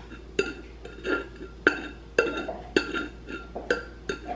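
Drinking glass knocked and twisted against a plate of Tajín seasoning to coat its rim. It clinks about twice a second, about eight times, each knock with a short glassy ring and a gritty scrape.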